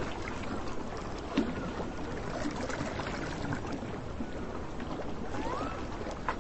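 Beach ambience: a steady wash of surf and wind, with a few faint ticks and a short rising whistle a little after five seconds in.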